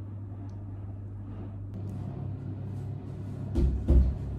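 A steady low hum, then two dull, heavy thumps close together about three and a half seconds in.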